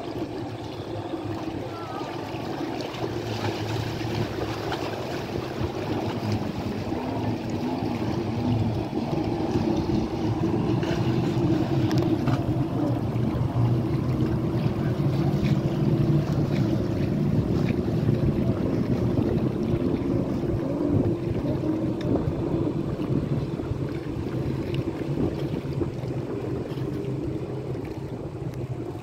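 Jet ski engines running, a steady drone that wavers in pitch a few seconds in and grows louder through the middle as the watercraft pass close, then eases off, with wind and water noise beneath.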